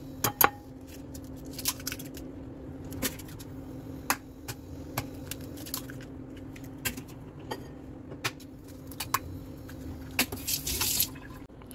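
Eggs being cracked against a bowl and emptied into it: scattered light taps and clicks of shell on the bowl over a steady low hum, with a short rustling hiss near the end.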